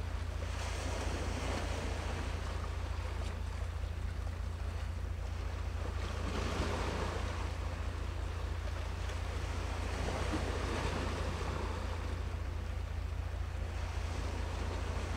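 Sea waves washing, swelling and easing in a few surges, over a steady low rumble of wind on the microphone.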